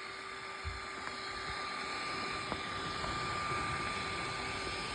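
3D printer running a print: a steady whir of its fans and stepper motors, with several held tones and a few faint clicks.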